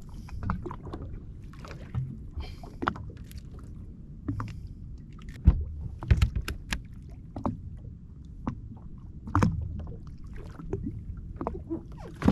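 Water lapping and sloshing against a jet ski's hull, with scattered knocks and clicks from fish and gear being handled on board. The sharpest knocks come in a cluster around the middle.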